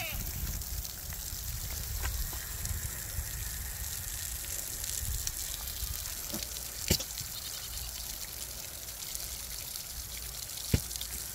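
Sow rooting with her snout in a muddy puddle, the water sloshing and trickling over a steady background noise, with two sharp clicks, one about seven seconds in and one near the end.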